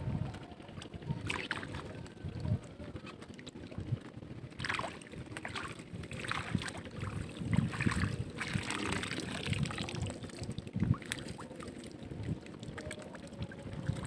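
Water splashing and sloshing in irregular bursts, strongest about five seconds in and again from about six to nine seconds in, over a low rumble of wind on the microphone.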